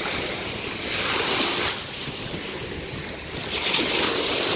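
Small ocean waves breaking and washing up the beach, with two louder surges, one about a second in and one near the end.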